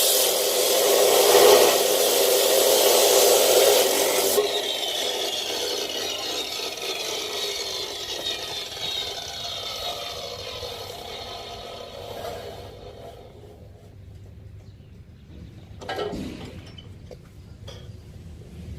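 Power saw cutting 14-gauge steel tube, then shut off, its motor winding down with a slowly falling whine. A short knock follows near the end.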